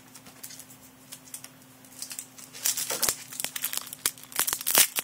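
Foil wrapper of a Yu-Gi-Oh booster pack crinkling and tearing as it is opened, starting about halfway through and getting louder toward the end.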